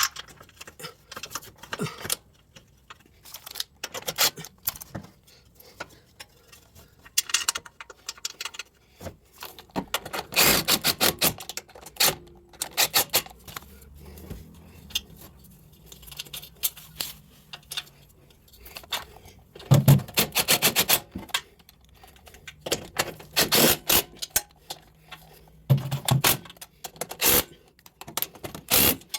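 Hand tools at work on a scooter's rear wheel: several bursts of rapid, even clicking like a socket ratchet being worked, between scattered metal clinks and knocks of tools and parts.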